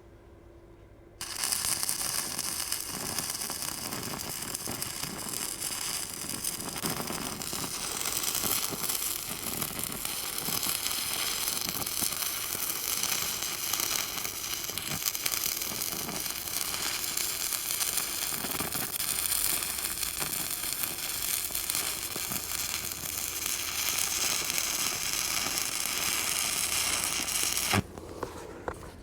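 Electric arc welder laying a weld on a steel gate hinge: a steady crackling sizzle of the arc. It starts about a second in and cuts off abruptly shortly before the end.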